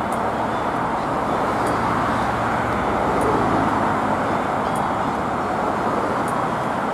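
Steady city road traffic: cars driving past, with a Melbourne A-class tram running along its track on the curve. A faint high tick comes about every second and a half.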